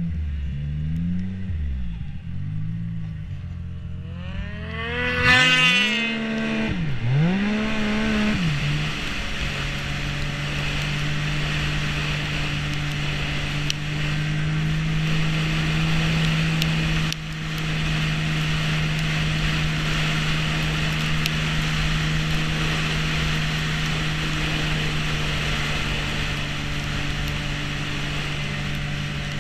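Snowmobile engine running under the rider: for the first several seconds its pitch rises and falls with the throttle, with a hard acceleration about five seconds in, then it holds a steady pitch while cruising along the trail. The pitch drops right at the end as it eases off.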